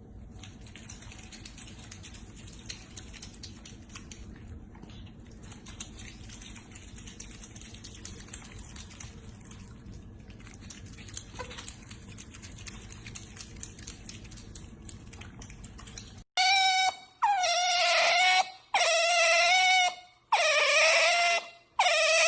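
Faint steady background noise with small clicks, then, about three-quarters of the way in, an otter's loud, shrill, high-pitched squealing calls, about five in a row, each lasting about a second.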